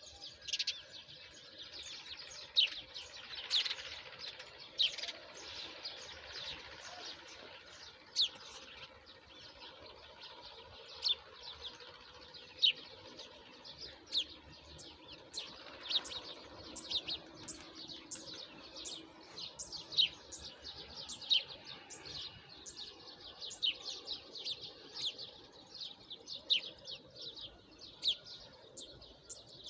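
Small songbirds chirping: many short, sharp, high-pitched chirps, each dropping quickly in pitch, coming irregularly one after another, with fainter bird calls in the background.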